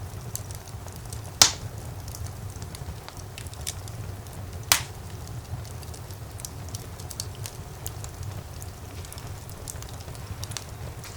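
Wood fire burning in a fireplace, crackling steadily over a low rumble of the flames, with two loud sharp pops about a second and a half in and near the middle.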